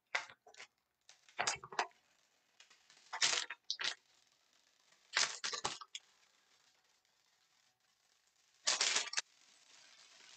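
Cardboard trading-card hanger box being torn open and its plastic-wrapped card stack pulled out: a run of short tearing and crackling bursts with gaps between them, the last about nine seconds in.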